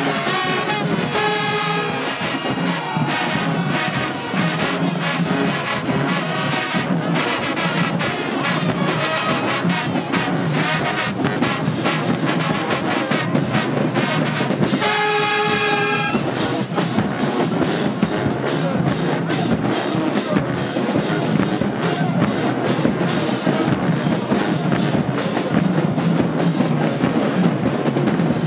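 High school marching band playing: a brass section of trumpets and trombones over fast, dense drumline strokes. About halfway through the band holds one long brass chord, then drumming with lower brass carries on.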